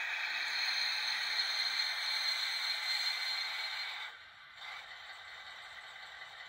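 A Fleischmann N-gauge DR class 112 (V100) model diesel running on its DCC sound decoder through its tiny speaker as the locomotive rolls slowly to a stop. About four seconds in the running sound drops off sharply, and after a brief sound a fainter steady hiss remains.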